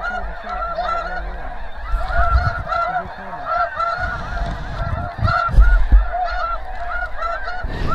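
A large flock of snow geese calling overhead: a dense, continuous chorus of many overlapping short, high honks. Two low bumps come about two-thirds of the way through.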